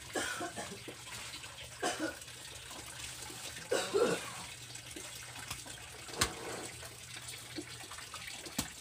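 Steady running or trickling water, with a few short pitched sounds, the loudest about four seconds in, and two sharp knocks near the end.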